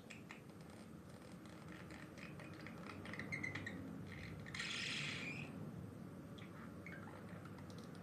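Budgerigar chattering quietly in short chirps, with a louder harsh, scratchy burst about five seconds in.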